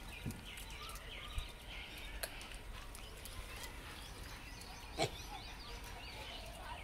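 Small birds chirping continuously, with a few sharp knocks; the loudest knock comes about five seconds in.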